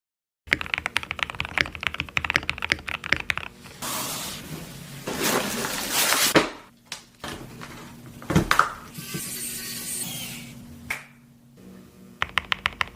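Typing on a mechanical keyboard with Gazzew Boba U4T tactile switches, in quick runs of keystrokes at the start and again near the end. In between come a few seconds of rustling noise and a single sharp knock.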